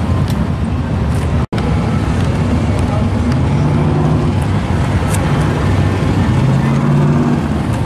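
Chevy Vega drag car's race engine idling loud and choppy through open zoomie headers. The sound cuts out for an instant about one and a half seconds in.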